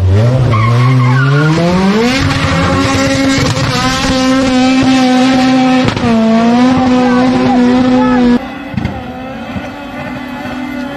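Drag car engine revving hard, rising in pitch for about two seconds and then held at high revs, with tyre squeal. The sound cuts off suddenly about eight seconds in and gives way to a quieter engine sound.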